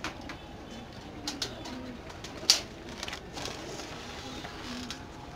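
A loft full of domestic fancy pigeons cooing, with low coos coming on and off throughout. Scattered short clicks sound among the coos, and one sharp click about halfway through is the loudest sound.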